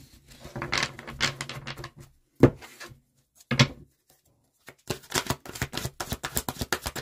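A deck of large oracle cards being handled and shuffled by hand: soft rustling, two sharp knocks, then a fast run of crisp card clicks as the cards are shuffled near the end.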